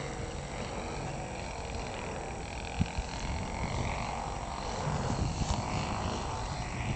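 Distant ASP glow engine of a Spacewalker RC model airplane droning overhead, its pitch wavering as the plane flies past. Wind rumble on the microphone grows from about five seconds in, with a single sharp knock about three seconds in.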